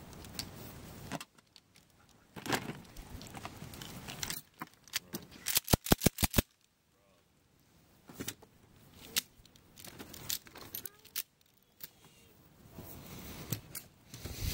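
Rattling and clicking of gear handled close to the microphone, with rustling between. About six seconds in comes a quick run of about six sharp, loud clicks.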